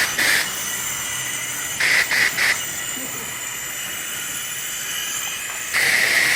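High-pressure spray wand at a self-serve car wash, a steady hissing spray with a high whine, swelling louder in bursts as the jet plays across the car.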